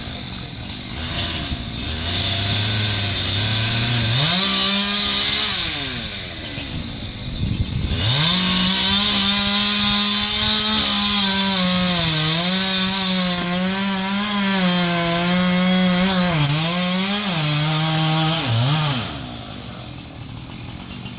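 Chainsaw idling, then revved up and cutting into the trunk in two runs: a short one about four seconds in, then a long one from about eight seconds in. Its pitch dips and wavers as the chain bogs in the wood, and it drops back to idle near the end.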